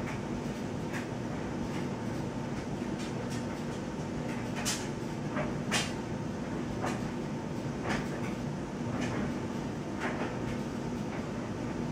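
Steady low hum with faint sharp ticks about once a second.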